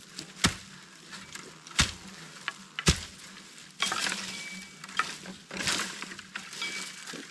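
Digging into earth: three sharp strikes of a digging tool about a second apart, then stretches of loose soil scraping and crumbling.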